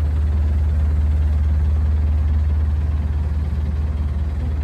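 Sightseeing boat's motor running steadily, heard from on board as a constant low hum with no change in pitch.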